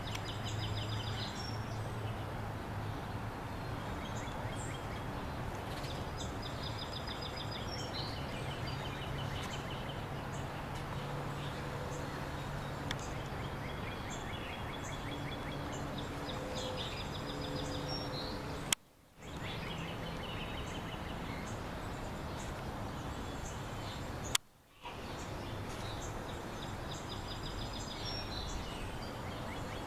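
Outdoor ambience: small birds chirping and trilling over a steady low hum and background noise. Twice, a click is followed by a brief dropout of all sound.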